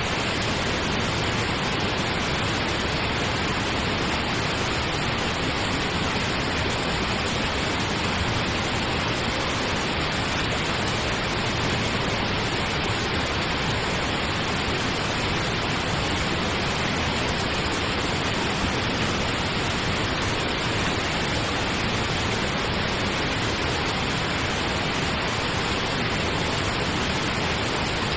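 Steady pink noise: an even, unchanging hiss like a distant waterfall, with no breaks.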